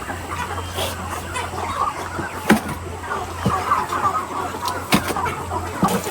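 A flock of chickens clucking over a steady low hum, with two sharp clicks, about two and a half seconds apart.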